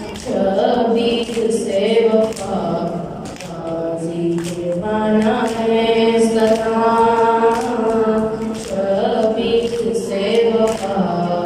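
Unaccompanied noha, a Shia mourning lament, sung by a group of male voices following a young lead reciter at a microphone, with sharp hand-on-chest strikes of matam keeping a steady beat about once a second.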